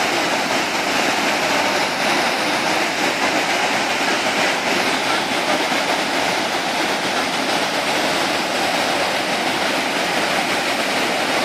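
The Jajce waterfall: a steady, unbroken rush of falling water.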